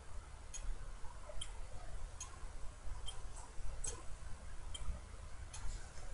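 Evenly spaced sharp ticks, a little more than one a second, over a steady low hum.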